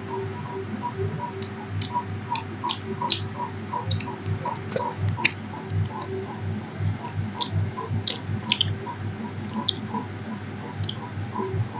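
Eating by hand from steel plates: sharp, scattered mouth clicks and smacks of chewing and the fingers working rice. Under them runs a steady, evenly repeating soft ticking with a constant low hum.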